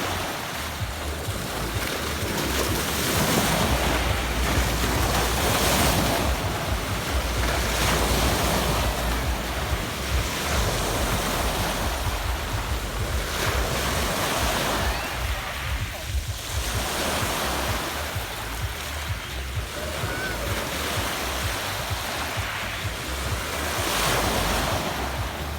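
Adriatic Sea waves washing onto a pebble beach, the surf swelling every few seconds, with wind rumbling on the microphone.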